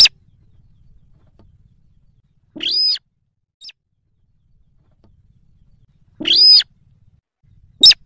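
Slaty-breasted rail calling: two longer arched call notes about three and a half seconds apart, with very short, sharp notes near the start and the end.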